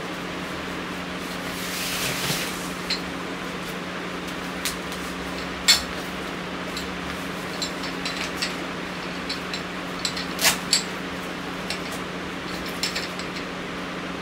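Fabric rustling with scattered sharp clicks and taps as a collapsible Godox CS-65D lantern softbox is handled and its skirt fitted. The loudest click comes about six seconds in, with a quick pair of clicks a little past ten seconds. A steady fan hum runs underneath.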